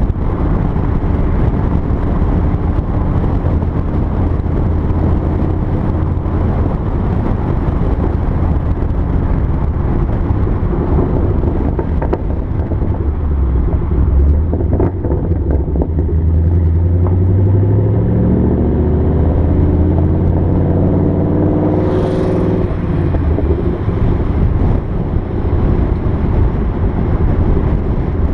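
2014 Mustang GT's 5.0 V8 exhaust through Roush axle-back mufflers with the resonators deleted, on the move. Scattered crackles and pops come off the throttle in the first half, then the engine revs up with a rising note and is cut off by a sharp crack about three-quarters of the way through.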